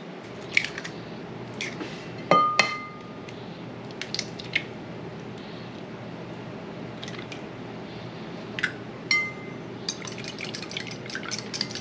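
Kitchen bowls and utensils clinking on a countertop, twice with a short ringing clink, as eggs are cracked into a ceramic bowl. Near the end a fork beats the eggs in the ceramic bowl, a quick run of clicks against its side.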